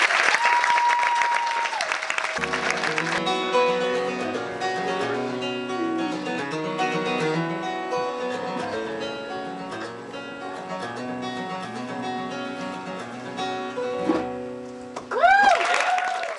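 Applause with a single held whistle-like tone for about a second and a half, then acoustic guitar music from about two seconds in, plucked notes ringing on and slowly getting quieter. Near the end a short loud sound with pitch sliding up and down cuts in.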